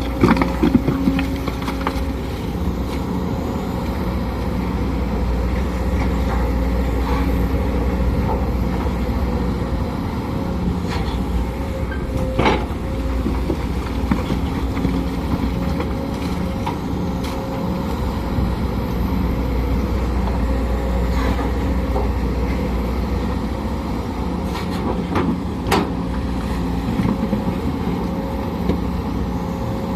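Sumitomo SH210 hydraulic excavator's diesel engine running steadily under working load, with a steady whine over the drone. A few short sharp knocks stand out, the clearest about twelve and twenty-six seconds in.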